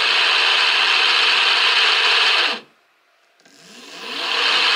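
Two hoverboard hub-motor wheels, driven from a single controller at full throttle, spinning with a loud steady whirring. About two and a half seconds in the sound cuts out suddenly for under a second, then builds back up with a rising whine as the motors spin up again.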